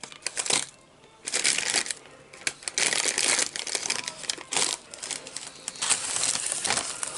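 Empty paper nugget bag being crumpled and folded by hand: an uneven run of paper crinkling, loudest from about one to four seconds in.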